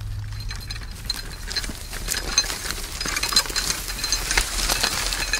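Metal clinking and rattling from a horse-drawn harrow and its harness chains as a Belgian draft horse pulls it along, with many sharp clinks that grow busier after the first couple of seconds. Wind rumbles on the microphone underneath.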